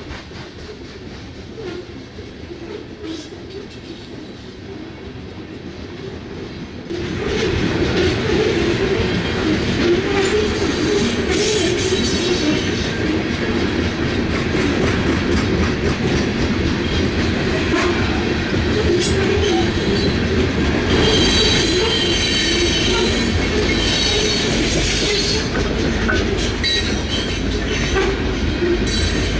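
Loaded coal cars of a unit coal train rolling past, a steady rumble with wheels clattering over the rail joints. About seven seconds in it gets abruptly louder, and bouts of high wheel squeal ring out, strongest past the middle.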